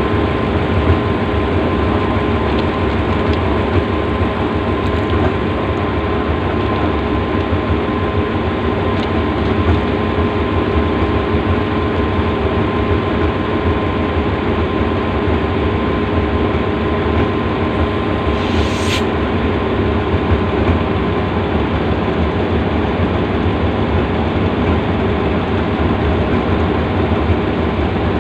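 Diesel locomotive idling at a standstill: a steady low engine rumble with a constant hum. A brief hiss sounds about two-thirds of the way through.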